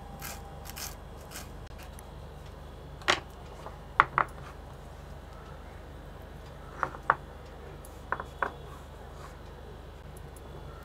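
A kitchen knife knocking on a wooden cutting board as curry leaves are chopped, heard as a few separate taps spread over several seconds, over a faint steady hum.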